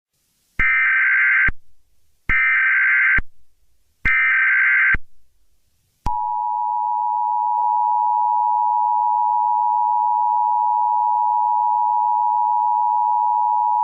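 Emergency Alert System tones: three short bursts of buzzy, warbling data tones (the SAME header that opens an alert), then about six seconds in, the steady two-tone EAS attention signal, a harsh continuous dual-pitched tone.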